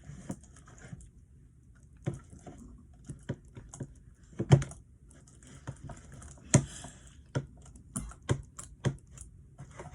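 Irregular sharp clicks and taps from slime being mixed, a few of them louder, about four and a half and six and a half seconds in.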